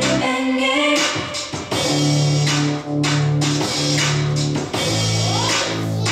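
A song with guitar, bass and drums playing through Micca MB42 bookshelf speakers, streamed from a phone over Bluetooth and driven by an F900 mini Bluetooth amplifier.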